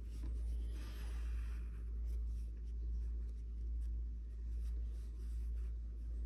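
Soft scratchy rubbing of black yarn being drawn through crocheted stitches with a yarn needle, over a steady low hum.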